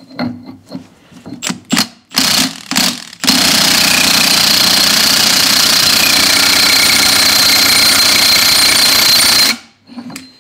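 Milwaukee impact wrench hammering steadily for about six seconds as it runs a large 2 9/16-inch lock nut down onto a hydraulic cylinder rod, then stopping. Before it starts there are a few knocks and clicks of the socket being fitted onto the nut.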